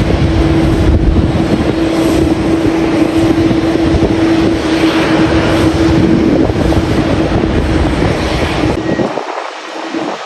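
Jet airliner engine noise with a steady hum, mixed with heavy wind rumbling on the microphone. Near the end the deep wind rumble drops away and the sound gets quieter.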